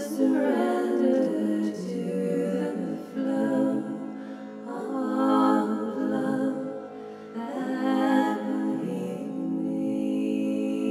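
A singing bowl rings in a steady, sustained drone while a woman's wordless voice sings slow, wavering phrases over it. The voice swells three times.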